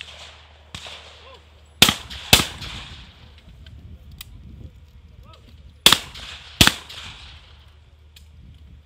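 Shotguns firing at clay targets. Two loud pairs of shots come about four seconds apart, each pair two shots roughly half a second apart, and each shot trails off in echo. A single shot sounds right at the start and a fainter one follows under a second later.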